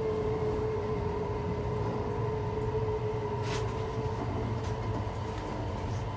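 Mitsubishi IGBT VVVF inverter and traction motors of a JR Hokkaido 733-3000 series electric train, heard from inside the car over the rumble of the wheels. The motor tone falls slowly in pitch and fades out about four seconds in as the train slows for a station. There is one short click about halfway through.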